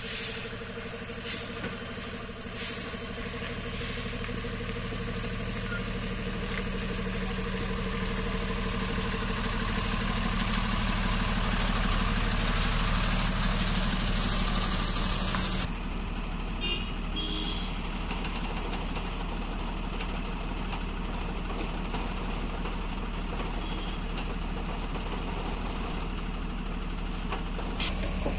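Heavy multi-axle lorry's diesel engine running as the truck crawls round a hairpin bend, with loud air-brake hisses in the first few seconds. About halfway through the sound changes abruptly to a quieter, steady engine idle.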